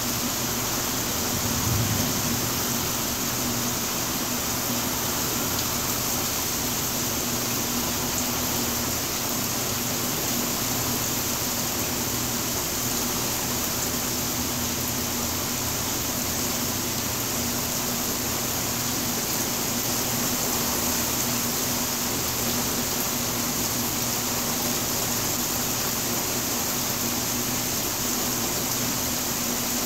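Steady rain falling in a thunderstorm: a continuous, even hiss, with a faint steady hum underneath.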